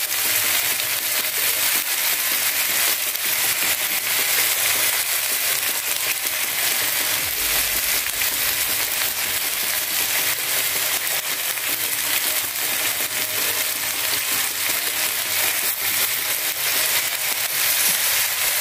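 Whole fish sizzling steadily with fine crackling on a hot double-sided grill pan, its skin glazed with sweet soy sauce.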